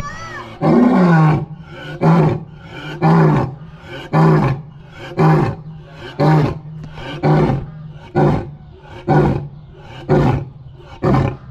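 A lion roaring: a bout of deep grunting roars, about one a second, each call shorter toward the end.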